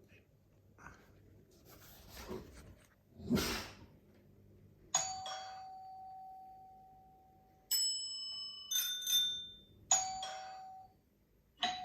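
Doorbell chimes ringing several times: a chime tone about five seconds in that rings on and fades over a couple of seconds, a higher-pitched set of chimes soon after, then more chime strikes near the end. Before the chimes there are a few soft rustling noises and a short louder whoosh.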